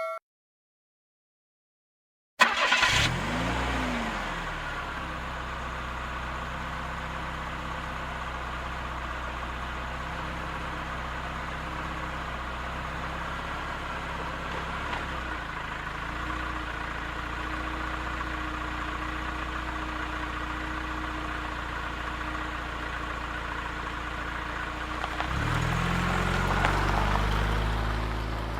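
A car engine starting about two seconds in, with a short rev that rises and falls back, then idling steadily. Near the end it is revved up again and eases off.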